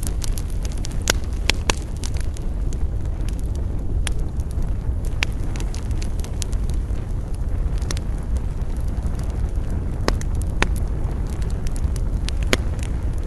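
Campfire burning, the wood crackling with sharp, irregular pops scattered through over a steady low rushing.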